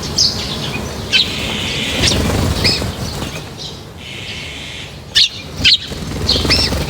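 Birds at a feeding spot making many short, sharp chirps, with a rumbling flutter of wings underneath.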